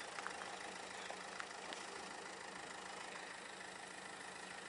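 Car engine running steadily with a low, even hum, with a few faint ticks early on.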